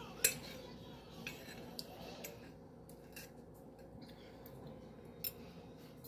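A metal fork clinking and scraping against a ceramic plate a few times as food is picked up: several short sharp clicks spread through, the first one, just after the start, the loudest.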